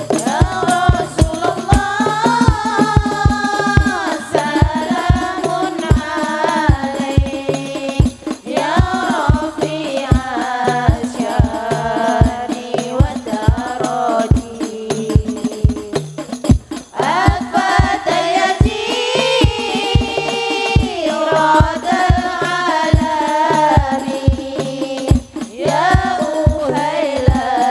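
Hadroh ensemble: women's voices singing a devotional song together in phrases of a few seconds, over a dense, steady beat of rebana frame drums with low bass-drum thumps.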